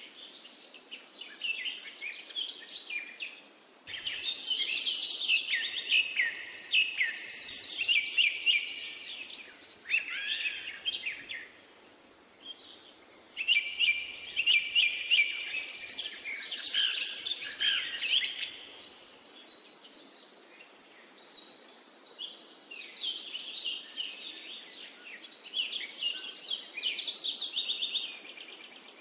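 Songbirds chirping and singing in quick bouts of high notes, with a few short lulls, over a faint steady background hiss.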